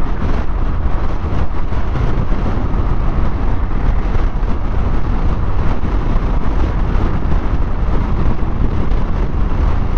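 Steady wind rush on the microphone with the deep rumble of a Yamaha NMAX scooter riding at highway speed.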